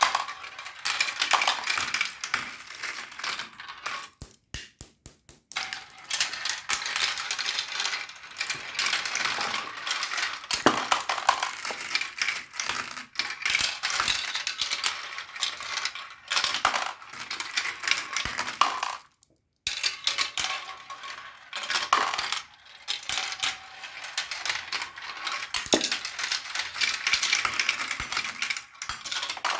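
Marbles rolling and clattering down a marble run, a dense stream of rapid clicks and rattles. About four to six seconds in it thins to separate clicks, and it drops out briefly just before twenty seconds.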